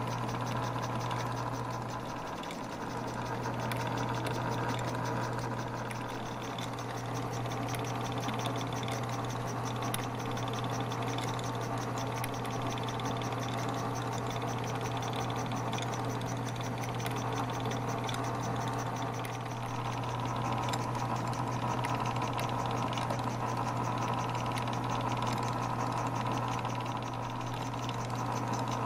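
Vintage Doll & Co tin-plate beer-drinker steam toy accessory running off a belt drive: a steady mechanical whir with a low hum and rapid, even light ticking from its pulleys and linkage.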